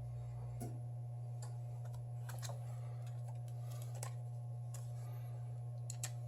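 Scattered light clicks and ticks of a thin metal pry tool working under the glued curved glass of a Samsung Galaxy S7 Edge display, over a steady low hum.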